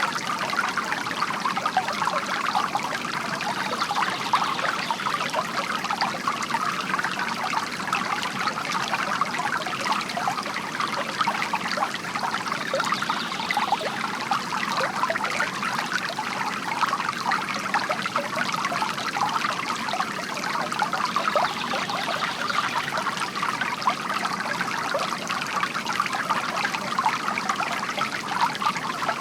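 Water from a bamboo fountain trickling and splashing steadily into a basin, a continuous patter of small drops.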